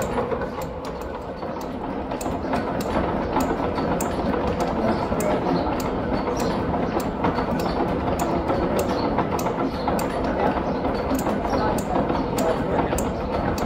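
Large old J. J. McCabe lathe running under power, its drive making a steady mechanical noise with a sharp click about twice a second.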